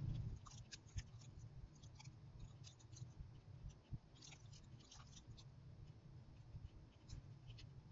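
Faint, irregular keyboard keystrokes, single clicks and quick little runs, over a low steady hum.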